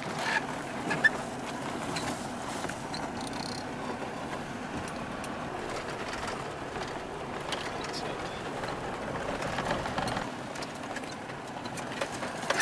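Vehicle driving slowly along a track, heard from inside the cabin as a steady rumble and road noise, with a couple of sharp knocks about a second in.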